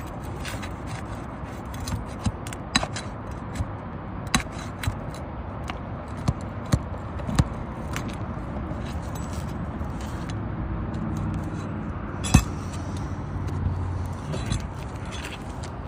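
Roofing nails being pried out from under old three-tab asphalt shingles with a metal tool: scattered sharp metallic clicks and scrapes, with one louder knock about twelve seconds in.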